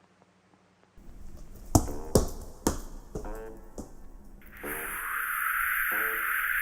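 Added Foley sound effects: a few sharp knocks in quick succession, then a loud steady hiss that starts about halfway through, over faint musical notes.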